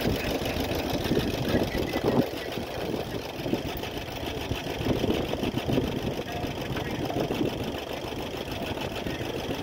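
Allis-Chalmers farm tractor engine running steadily at low throttle, with a fast, even firing beat.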